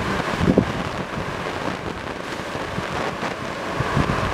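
Wind buffeting the microphone in low gusts, over the steady distant roar of a twin-engine jet airliner's engines on its takeoff roll.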